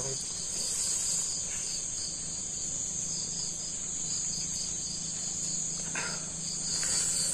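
Night insects, crickets, chirring steadily in a continuous high trill with a fast pulsing note beneath it, over a low steady hum.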